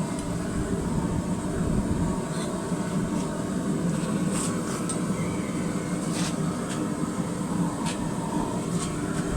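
Forge running steadily while a piece of steel heats in it, with a few faint clinks.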